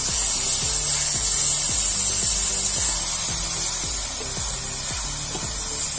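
Cabbage and potato curry sizzling with a steady high hiss in an uncovered aluminium pan while it is stirred with a wooden spatula, over background music.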